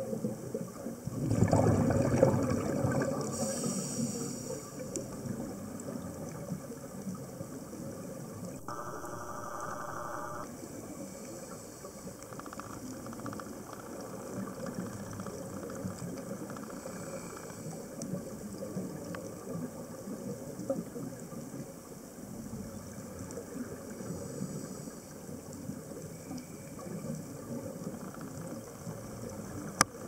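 Underwater sound of a scuba diver breathing through a regulator: a gurgling rush of exhaled bubbles about a second in, then a steady low underwater wash.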